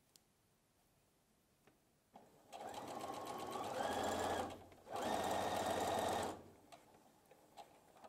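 Electric domestic sewing machine stitching in two runs, the first about two and a half seconds long and picking up speed partway, then a brief stop and a shorter second run of about a second and a half.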